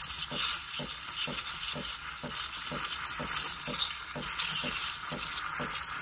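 DeLonghi La Specialista's single-hole steam wand hissing into a jug of milk as it stretches it, the tip drawing air into the milk to build microfoam, with a regular pulse about four times a second.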